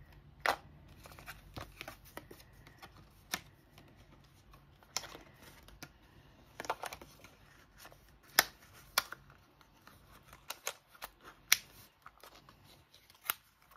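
Scattered light clicks and taps of small hand tools and plastic blister packaging being handled and set down on a desk, irregular, with two sharper clicks in the second half.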